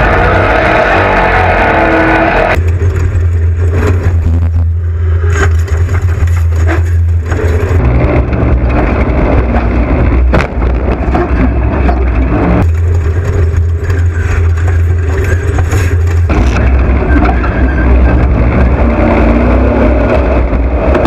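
Off-road race vehicles' engines running loud, the sound changing abruptly every few seconds.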